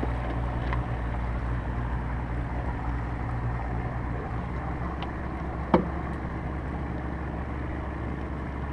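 Steady low rumble of a boat's motor running on the water. One sharp knock, a little before six seconds in, is the loudest sound.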